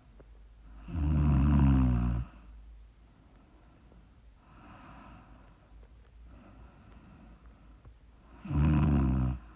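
A woman snoring in her sleep: two loud snores about a second long, roughly seven seconds apart, with a much fainter breath between them.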